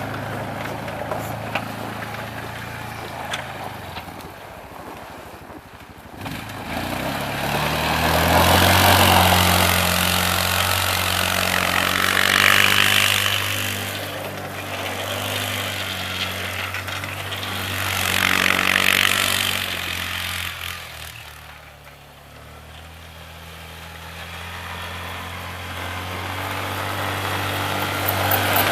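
Mahindra Roxor side-by-side's four-cylinder turbodiesel engine driving, revving up and easing off several times, loudest about a third and two thirds of the way through, with a hiss of wind or tyre noise over it.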